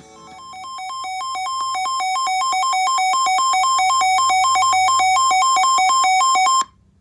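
Electronic emergency alert tone that switches rapidly back and forth between two buzzy pitches, comes on quietly, grows louder over about two seconds, holds steady and cuts off suddenly near the end. It marks the start of a new weather warning.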